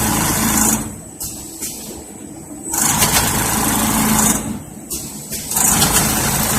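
Automatic double-head woven-bag sewing machine running in bursts of a second or two, separated by quieter gaps, as it stitches bags closed.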